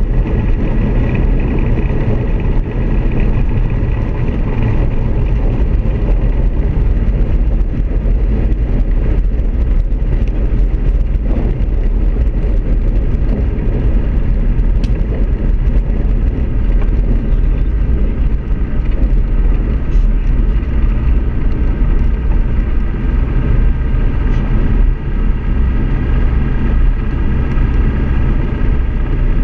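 Zenith CH 701 light aircraft's engine and propeller running steadily while taxiing on a grass strip, heard inside the cockpit as a loud, even drone.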